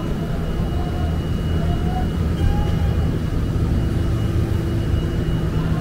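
Steady low city-street rumble and hum, with a faint thin high tone held throughout.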